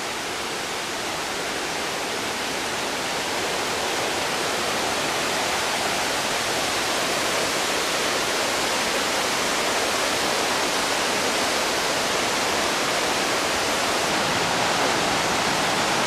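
Victoria Falls' roar: a steady rush of falling water that grows gradually louder over the first several seconds, then holds.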